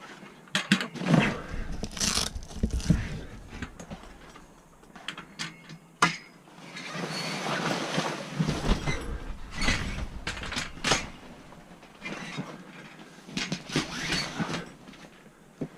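Metal spreader bars being handled and fitted into a camper trailer's canvas: a series of knocks and clatters, the sharpest about six seconds in, between stretches of scraping and rustling.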